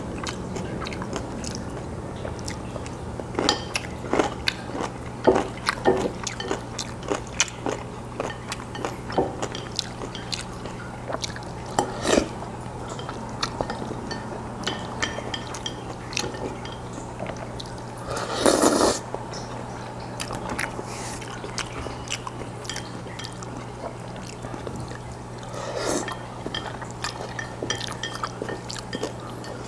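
Close-miked wet chewing and lip-smacking of a man eating jjajangmyeon (Korean black bean noodles), a continual run of small sticky clicks and smacks. A longer, louder wet sound comes about 18 seconds in and a shorter one near 26 seconds, over a faint steady low hum.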